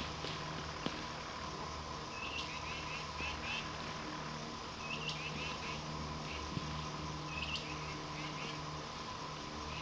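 Repeated chirping calls in the woods, a group about every two and a half seconds, each a quick rising note followed by a few short chirps, over a steady late-summer insect drone.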